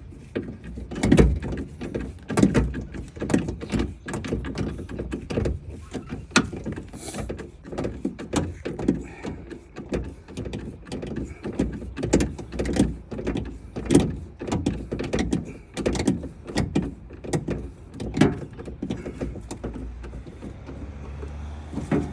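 Irregular clicks, knocks and clunks of a window regulator and its bracket being handled and fitted inside a Ford Ranger's door shell, metal on metal.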